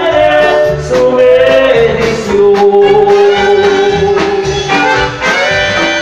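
Live band music played loud over the stage speakers: a horn section holds long melodic notes over bass and drums.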